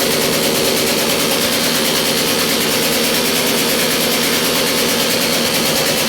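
Motorcycle engine with a loud exhaust running steadily at an even speed, without revving.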